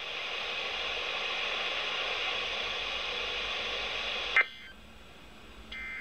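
NOAA weather radio receiver playing steady static hiss for about four seconds, which cuts off with a click as the receiver mutes. Near the end comes a short, faint electronic data burst: the Emergency Alert System end-of-message code that follows the required weekly test.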